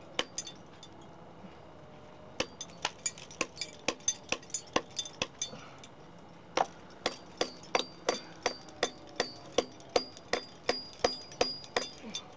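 Climber's hammer striking a firmly set steel piton in a granite crack to loosen it for removal. A steady run of sharp metallic blows, about two and a half a second, begins a couple of seconds in. In the second half a high ring follows each blow.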